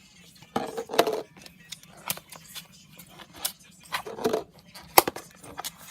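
Plastic container and its snap-seal lid being handled and opened: sharp plastic clicks and crackling, with two longer scraping bursts about half a second in and about four seconds in.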